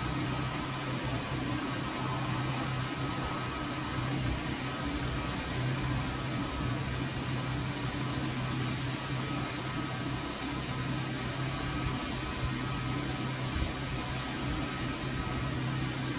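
A steady low mechanical hum, like an engine running at idle, unchanging throughout.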